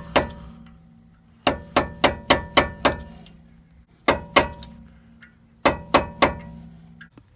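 Hammer tapping a flat-nose punch to stake the axle nut's collar into the flat on the axle shaft so the nut can't back off. The taps are sharp and metallic with a short ring: one, then a run of six, then two, then four, about three or four a second within each run.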